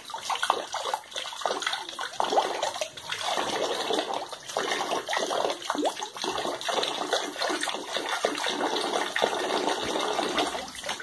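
Piglets slurping and splashing at water, an irregular run of short wet smacks and splashes.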